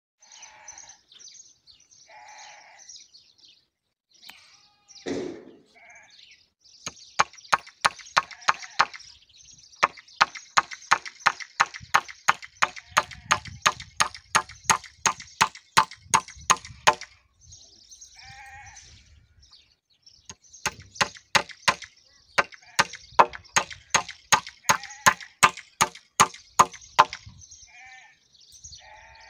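Hammer driving nails through a metal connector plate into a wooden post and beam, in two long runs of quick, even blows, about three a second. Sheep bleat in the pauses between the runs.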